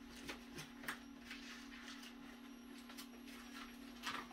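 Faint steady hum with scattered light clicks and taps.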